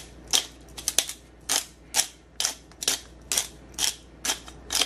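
A hand-twisted pepper mill grinding black pepper, in short crunchy strokes about two a second.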